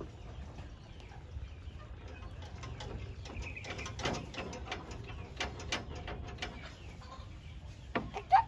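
Doves cooing and chickens calling, with a series of short clicks and knocks in the middle and a loud chicken call with a falling pitch near the end, over a steady low hum.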